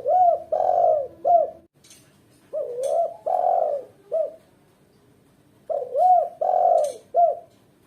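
Female spotted dove cooing: three phrases a few seconds apart, each a short note, a longer note and a short note, the call a hen gives when calling a male to mate.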